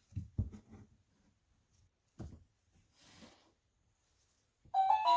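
Soft knocks and a brief rustle from a children's board book being handled, then near the end the book's electronic sound module starts playing a tinny melody.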